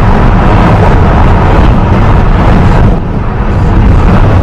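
Steady road and engine noise of a car driving at highway speed, heard from inside the cabin, with a brief dip in level about three seconds in.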